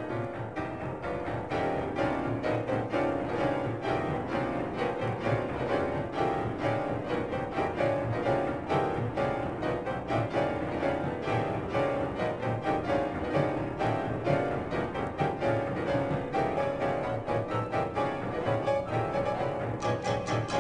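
Instrumental music led by piano, played as a steady stream of rapid, densely packed notes.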